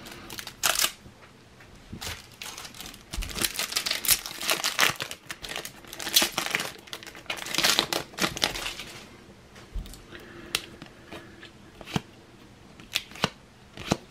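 Shiny foil trading-card pack being torn open and its wrapper crinkled, with dense crackling for several seconds. After that come scattered short clicks as the cards are handled.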